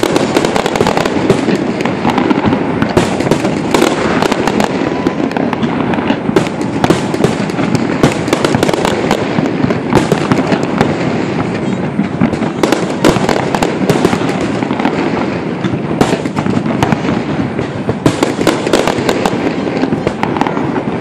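Fireworks display: a continuous barrage of bangs and crackling, with many sharp reports a second and no pause.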